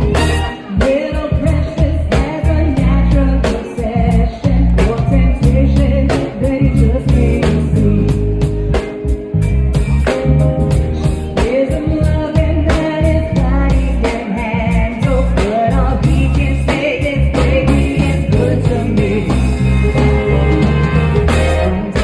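A band playing with a singer: a steady drum beat and bass under a sung melody.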